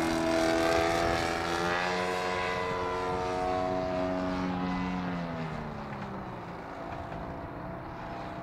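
Propeller engine of a 50%-scale Bill Hempel Clipped Wing Cub radio-controlled model plane droning in flight. Its pitch holds steady, then drops and the sound fades after about five seconds as the plane pulls away.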